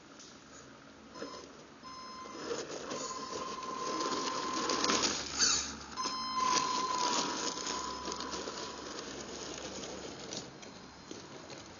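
Radio-controlled scale Unimog on a Tamiya CC-01 chassis driving over loose gravel: the electric motor and gears whine on a steady pitch over the crunch of the tyres on stones. It grows louder as the truck comes close about five seconds in, then fades as it drives away.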